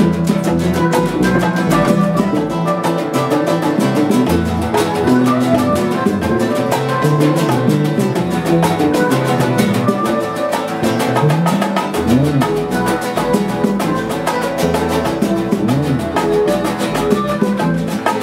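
Instrumental Cuban salsa-style band music: electric and acoustic guitars over a bass line, with bongos keeping a steady Latin rhythm and no singing. A few notes slide upward now and then.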